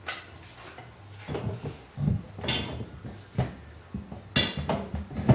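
Metal parts and tools being handled on a workbench: a series of irregular knocks and clanks, two of them ringing briefly.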